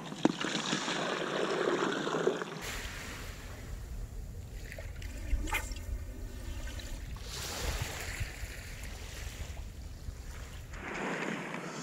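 Wind rumbling on the microphone over gentle surf at the water's edge. There is one brief sharp sound a little past halfway.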